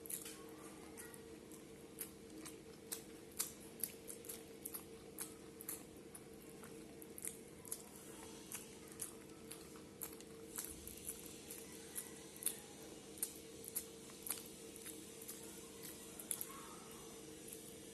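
A person chewing and eating rice and curry: irregular wet mouth clicks and soft squishing a few times a second, over a steady low hum.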